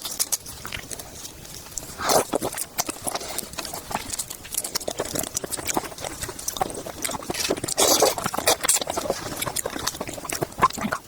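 Close-miked eating sounds: chewing crisp seafood with quick clicking mouth sounds. Louder crunchy bites come about two seconds in and again around eight seconds.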